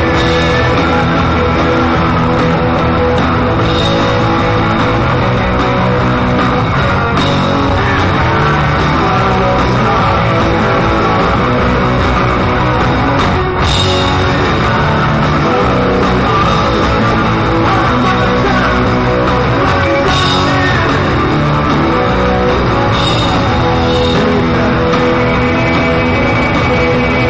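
Live rock band playing loud, heard close to the drum kit: drums and cymbals driving under electric guitar.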